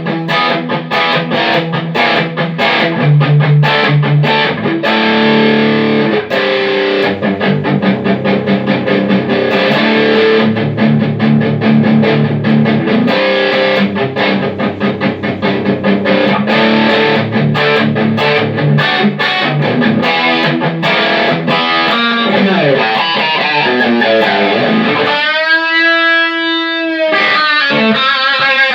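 Electric guitar played through a Line 6 HD500X multi-effects processor with a distorted tone: fast picked riffs, sliding notes after about twenty seconds, then a held note whose pitch wavers near the end. The signal comes through cleanly, so the repaired unit's output works again.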